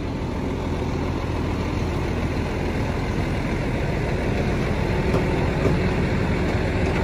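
Fire engine's diesel engine running steadily beside a charged hose line, a continuous low rumble.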